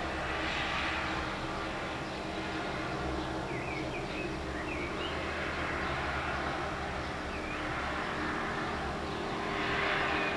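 Steady outdoor background noise with a low hum, swelling near the start and again near the end, with a few faint short chirps in the middle.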